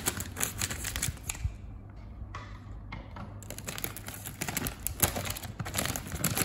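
Foil-lined plastic snack bag crinkling and crackling as it is cut and torn open by hand, with a quieter lull about a second and a half in before the crinkling picks up again.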